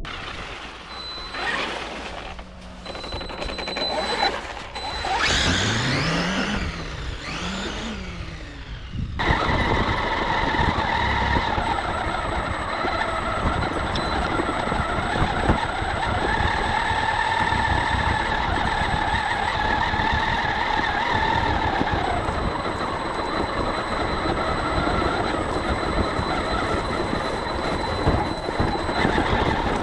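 Traxxas Maxx WideMaxx RC monster truck's brushless electric motor and drivetrain whining, rising and falling in pitch as the truck speeds up and slows, then running steadily at speed from about nine seconds in.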